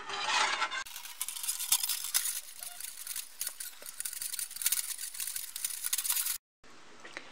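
Fabric tube cord rustling as it is pushed along a thin jewellery wire, with faint small ticks of the wire. For the first second the metal wire coil clinks, and the sound cuts out briefly near the end.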